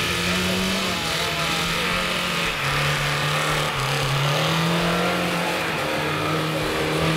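Lada Niva's engine running under load as it drives through snow, its note shifting down and back up in steps.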